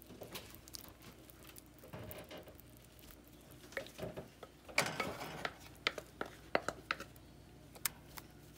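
Wooden spoon spreading soft mashed potato over shredded cheese and ground beef in a pan: soft squelching and scraping, with a scatter of light clicks of the spoon against the pan that come more often in the second half.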